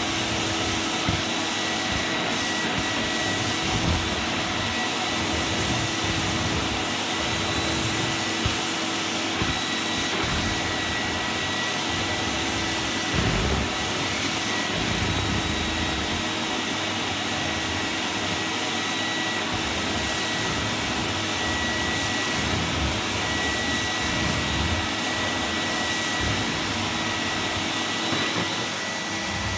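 Zelmer Wodnik 5 Profi System (619.5.B51E) vacuum cleaner running steadily in carpet-washing mode, its washing nozzle worked back and forth over a carpet: an even rushing suction with a steady high whine, and a few light knocks.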